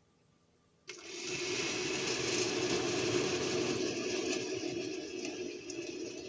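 Hot water pouring steadily into a container of caustic soda to make a paint-stripping bath, starting suddenly about a second in.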